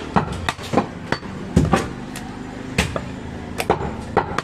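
Broad butcher's chopper striking through goat meat and rib bone onto a wooden chopping stump: a quick, uneven run of sharp chops, about three a second.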